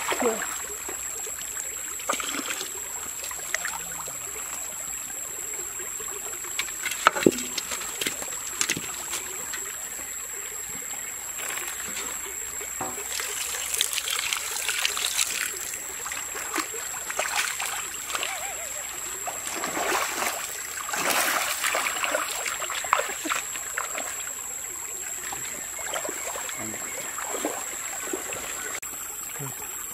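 Hot oil sizzling and spitting in a wok over a wood fire, with shallow stream water trickling. About halfway through, coconut milk is poured into the pan over sliced snakehead fish and greens, a louder splashing pour.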